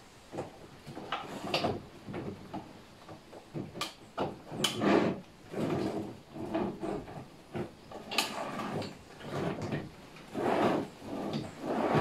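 Wooden drawer being fitted onto its metal side-mounted drawer slides and pushed in and out of the vanity cabinet: a string of irregular scrapes, rattles and knocks.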